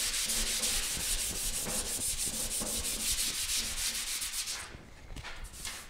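Hand sanding of guide-coated primer on a car body panel, with sandpaper under the palm. Quick, even back-and-forth scraping strokes die away about four and a half seconds in. This is paint prep: the primer is being sanded down to show any scratches or low spots.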